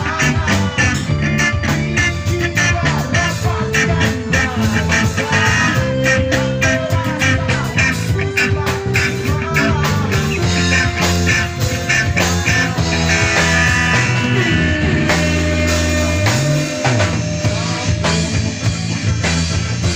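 Live rock band playing through amplifiers: electric guitars, bass, keyboard and drum kit. A low note slides up and back down about two-thirds of the way through.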